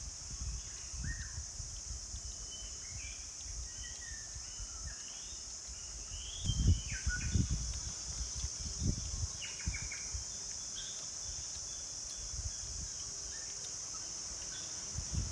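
Outdoor ambience: a steady high-pitched insect drone with short bird chirps scattered through it, and a few low thumps about six to nine seconds in.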